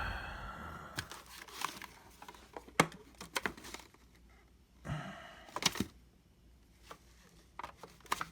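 Scattered clicks, taps and light crinkling from an HDMI cable and its plastic packaging being handled and plugged in, in short bursts with quiet gaps between.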